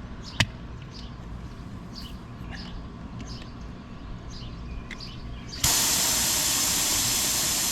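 Birds chirping faintly, with one sharp click about half a second in. Then, about five and a half seconds in, a loud steady hiss starts abruptly and holds.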